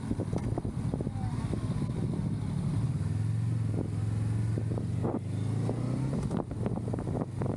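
Honda Rebel 500's 471 cc parallel-twin engine running steadily under way, its note strongest in the middle, with wind buffeting the microphone.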